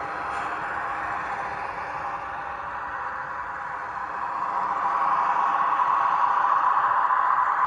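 Sound decoder in an H0 Esslinger diesel railcar model playing a steady diesel engine running sound through its small onboard speaker. It grows louder about halfway through as the railcar comes close.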